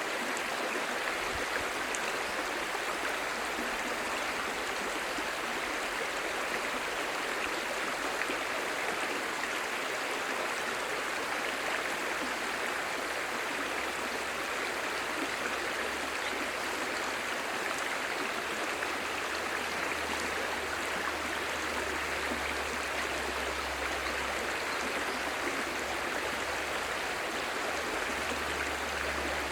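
Clear stream babbling: a steady, even rush of running water.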